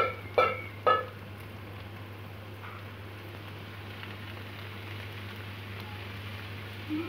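Sliced okra frying in oil in a metal pan, a steady sizzle. Two loud, short cries come in the first second.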